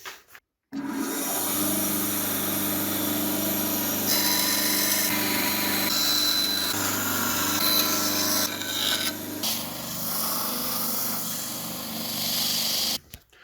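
A woodworking power tool runs steadily with wood held against it: a motor hum under a rasping rub. It cuts in about a second in, the hum shifts in pitch partway through, and it stops abruptly near the end.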